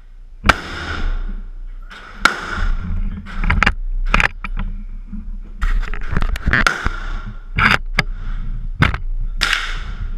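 Gunshots in an indoor shooting range: about a dozen sharp cracks at irregular spacing, each with a short echo off the concrete walls.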